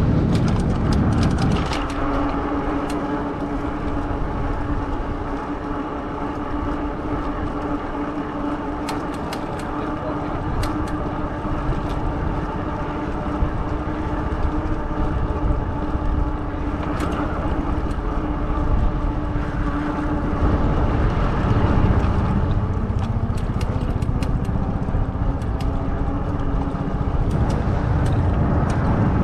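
Fat-tire e-bike riding along at a steady speed: a steady humming whine from its motor and tires, over a low rumble.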